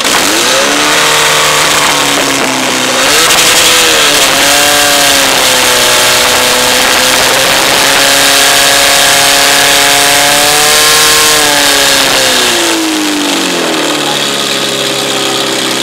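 Portable fire pump's engine run at full throttle, pumping water out through the hoses during a fire attack. Its pitch climbs right at the start, holds high and steady, then drops to a lower steady speed a couple of seconds before the end as the throttle is backed off.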